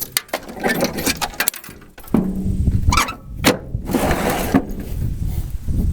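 Irregular metallic clicks, knocks and scraping as the battery cable connectors of an M35A2 truck are gripped and twisted on the battery posts, to break through corrosion that is keeping the starter from getting power.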